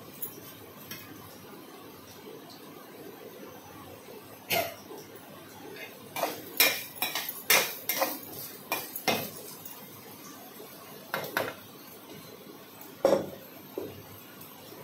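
Irregular clinks and clatter of steel kitchenware: metal bowls and utensils knocking together during cooking prep. A first clink comes about four and a half seconds in, a busy run follows in the middle, and a few more come near the end.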